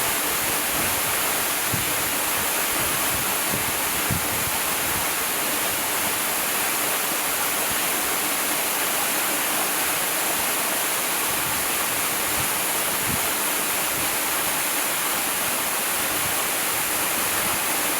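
Waterfall pouring down a rockface: a steady, even rush of falling water.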